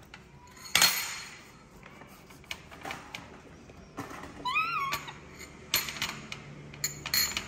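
Knife and fork clicking and scraping against a ceramic bowl as a ripe mango is peeled and sliced, in scattered short knocks. About four and a half seconds in, a baby macaque gives one short squeak that rises and falls.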